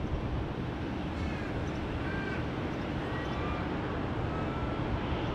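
A steady low rumble of distant jet aircraft, with a bird calling a string of short chirps and whistles over it from about one second in until past four seconds.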